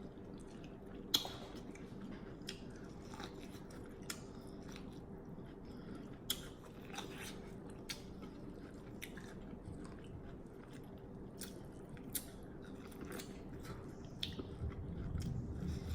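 A person chewing and smacking close to the microphone while eating corn, with irregular wet clicks of the mouth and teeth.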